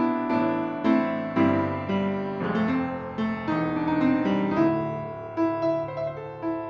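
A 1988 Yamaha P112 upright piano, in excellent condition, being played: a flowing passage of many notes struck in quick succession, each ringing on under the next.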